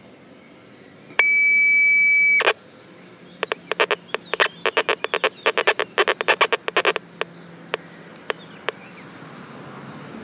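Terminator Pulse Hunter pulse-induction metal detector's audio beeping from the control box: one steady high-pitched tone of about a second and a half, then a fast irregular run of short beeps that thins out to a few separate ticks, while the sensitivity is turned down to about half.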